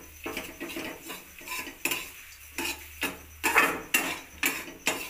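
A metal spatula scraping and knocking against a metal kadhai as thick, crumbly wheat-flour halwa is stirred. The strokes come at about two a second, unevenly spaced.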